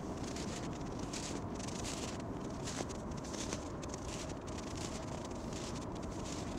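Wind blowing in gusts over open snowy ground, with a steady low rumble on the microphone and bursts of hiss that come and go.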